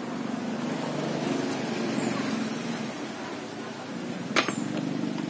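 Low steady rumble with one sharp knock about four seconds in, as a circular saw blade is worked onto the arbor under a wooden table saw.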